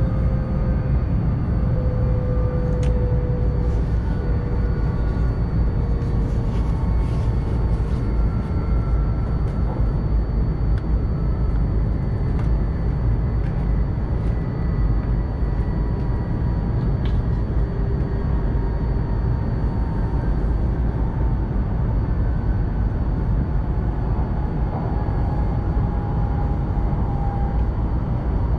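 Shinkansen train's running noise heard inside the passenger cabin: a steady low rumble with faint whining tones that slowly fall in pitch as the train slows.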